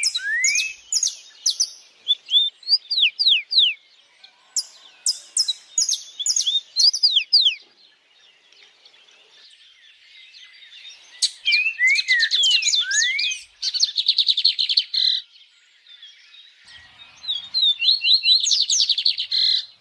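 Several songbirds singing and chirping: quick falling and rising whistled notes and fast trills, in bouts with short lulls around the middle.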